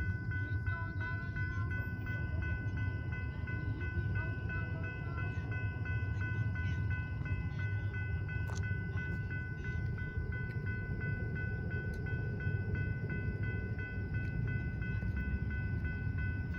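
Railroad crossing warning bell ringing in a rapid, steady, even rhythm while the crossing is activated for an approaching train, over a low steady rumble.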